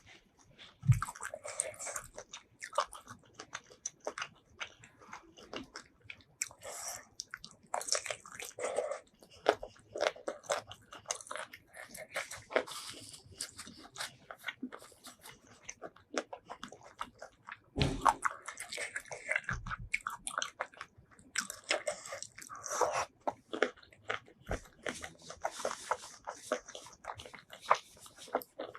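Close-miked eating of seafood: steady chewing and biting with many short, irregular crunches and clicks, and a few soft low thumps.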